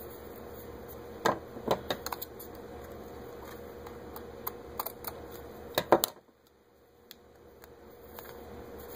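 Scissors cutting a 1.5-inch ribbon tail: a scattering of short sharp snips and clicks, the loudest near the six-second mark, over a steady low hum.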